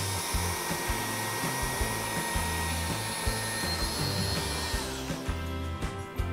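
Background music with a steady beat over the steady whine and rush of an electric motor, which winds down and stops about five seconds in.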